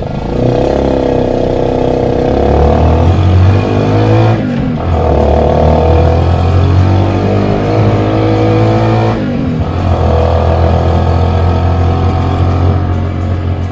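APTrikes125 trike's small engine and exhaust running under way, pitch rising and falling with revs, with two brief breaks about four and a half and nine seconds in, as at gear changes.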